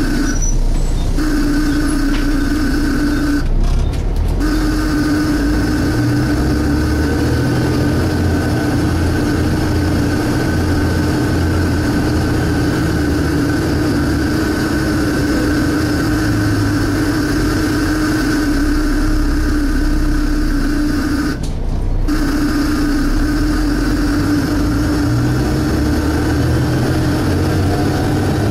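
Volvo B7TL double-decker bus's diesel engine running under way, heard from inside the bus, with a loud steady suction-like whine over the engine rumble. The whine cuts out briefly three times.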